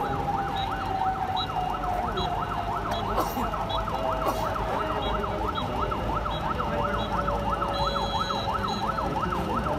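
Police vehicle siren on a fast yelp, rising and falling about four times a second, with a second steady tone slowly sinking in pitch beneath it.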